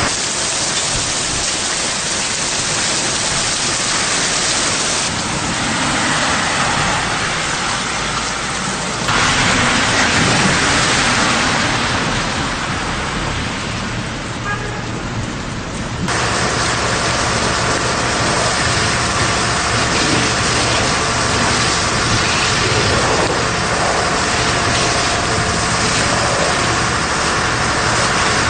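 Steady hiss of heavy rain and rushing water, changing abruptly about 5, 9 and 16 seconds in. From about 16 seconds in, a steady engine hum runs beneath the water noise.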